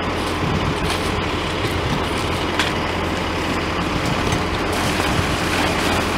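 Fire engine idling steadily, with faint rustling from a plastic dump-tank liner being unfolded over the pavement.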